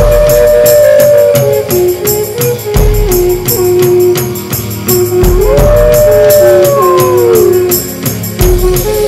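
Instrumental music with a fast, steady rattling beat and a deep thud every two to three seconds. Over it, two long tones glide up, hold and slide back down, like a howl: one at the start and one about five seconds in.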